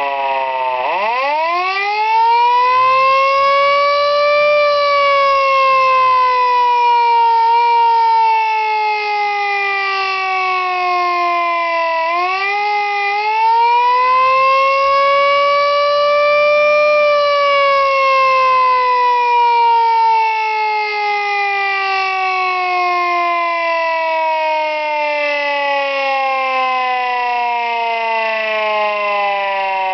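Mechanical rotor siren of a fire company winding up. Its wail climbs steeply over the first few seconds, then sags slowly. About twelve seconds in it winds up again, then runs down in a long falling wail.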